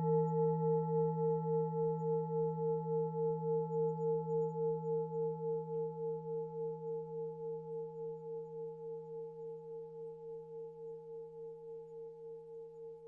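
A singing bowl ringing out: several steady tones together, wobbling about three times a second and slowly fading.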